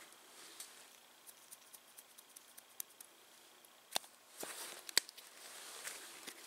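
A campfire crackling faintly with sparse small ticks, then a few sharp clicks and knocks about four and five seconds in as a green plastic-lidded container is handled over an enamel mug.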